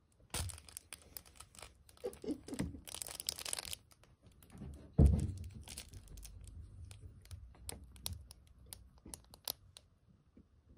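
Rustling and crinkling of a cat toy as it is waved at a cat and the cat swats and bites at it, with one loud dull thump about five seconds in and scattered sharp ticks after it.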